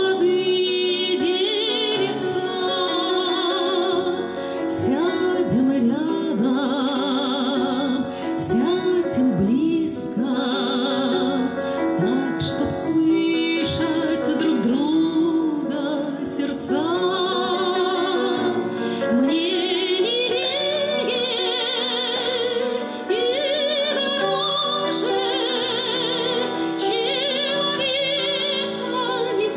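A woman singing a slow Russian song with strong vibrato, accompanying herself on a grand piano.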